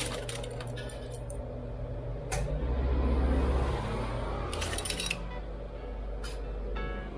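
Chopsticks rattling in a plastic basket and stainless steel spoons clinking against each other as utensils are picked out by hand: a few sharp clicks and clinks, with a cluster about five seconds in. Under them a low rumble swells about three seconds in.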